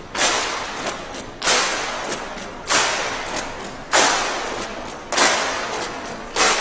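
A steady beat of sharp, noisy percussive hits, six in all, about one every second and a quarter, each fading out over about a second.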